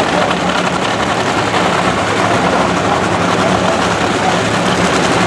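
Nitro funny car's supercharged V8 idling steadily and loudly with the body raised, a warm-up before the run.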